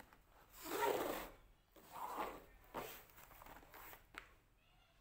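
A cardboard box scraping and sliding on a tabletop as it is handled and lifted, in a few rasping scrapes. The first and loudest comes about a second in, and a short knock follows near the end.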